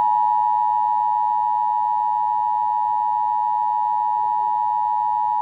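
Emergency Alert System attention signal: a loud, steady tone near 1 kHz held without a break, announcing that a severe thunderstorm warning is about to be read.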